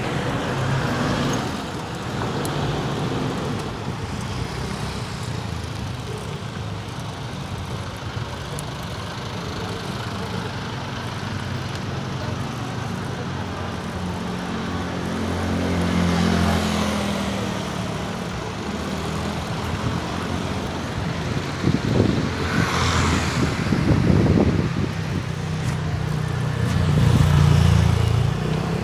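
Street traffic heard from a moving rider: steady road noise, with motor vehicles passing close by, the loudest about sixteen and twenty-three seconds in.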